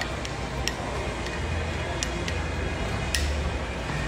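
Room background in a gym: a steady low hum with scattered sharp clinks every half second to a second.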